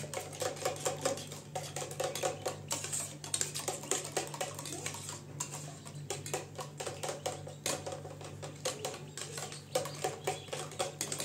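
Metal spoons clinking and scraping against stainless-steel bowls and a metal tray, many small irregular clinks, over a steady low hum.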